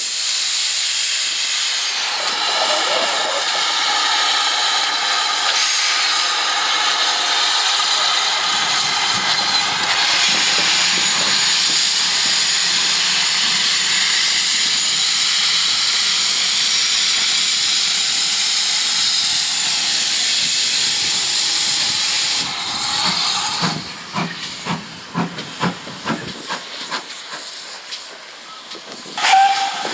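Steam hissing loudly and steadily from the open cylinder drain cocks of a GWR 5101 class large prairie tank locomotive as it gets under way. About 23 seconds in, the hiss gives way to quieter exhaust chuffs, about two a second, as the engine pulls away. A short, loud higher tone comes near the end.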